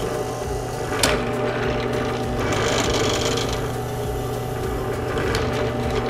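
Benchtop drill press motor running with a steady hum while a Forstner bit drills PVC pipe, with a brief higher hiss of cutting in the middle. A sharp click comes about a second in, and a fainter one shortly before the end.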